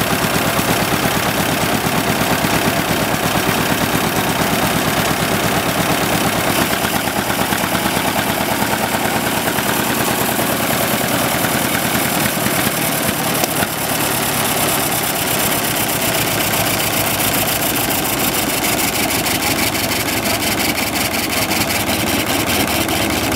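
Buda engine of a Plymouth Model BL friction-drive narrow-gauge mine locomotive idling, a steady rapid firing beat with an even level throughout.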